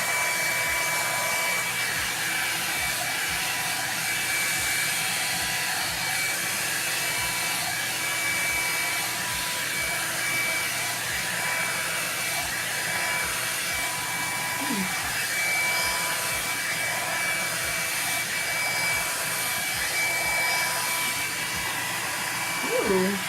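Revlon One-Step hot-air brush dryer running steadily on its low setting: an even rush of blown air with a thin steady whine from the motor and fan.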